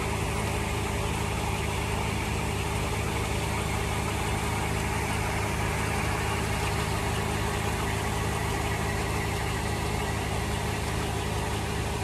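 Farm tractor engine running steadily, driving a grain auger through its PTO, with the hiss of grain pouring from a truck box into the auger hopper.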